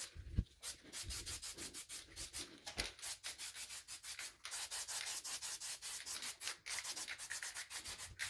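Aerosol can of clear coat being shaken hard, its mixing ball giving quick, even rattling strokes, about six a second, before spraying.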